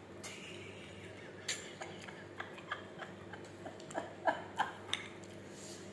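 Scattered light clicks and taps in a quiet room, with a woman's short bursts of laughter about four seconds in.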